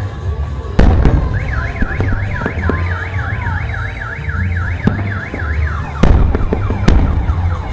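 Car alarm sounding a fast rising-and-falling warble, about three cycles a second, switching to a different repeating sweep near the end. Loud firework bangs go off once near the start and twice near the end, over a steady low rumble.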